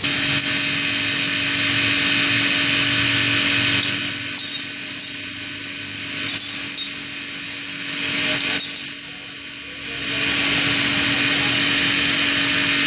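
Steady mechanical whine with a constant hum, easing off for a few seconds midway, over which metal tools clink several times against a motorcycle engine's aluminium crankcase as it is taken apart.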